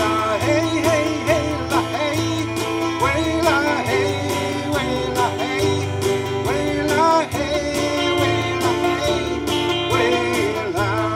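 Live country-gospel song: a man singing the lead over strummed acoustic guitar, with a bass line and keyboard from the band.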